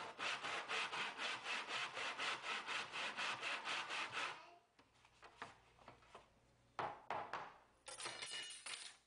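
Hand saw in a plastic miter box cutting through MDF: quick, even back-and-forth strokes, about five a second, that stop after about four seconds. A few knocks follow, then a short scrape near the end.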